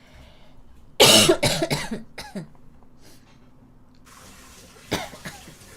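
A young woman coughing hard: a burst of several rapid coughs about a second in, lasting about a second, then one more short cough near the end.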